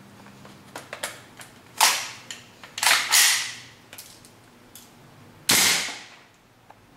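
Gas blowback airsoft rifle on green gas, with its stock hop-up, firing single shots of 0.2 g BBs: four sharp reports, two of them close together near the middle, with lighter mechanical clicks between shots.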